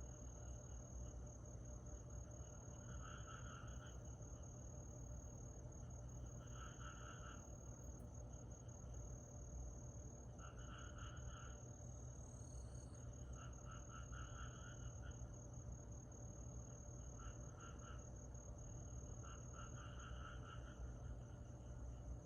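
Summer night chorus of insects: a steady high-pitched trill, with a short pulsed chirping call repeating about every three to four seconds over a low background rumble. The whole is faint.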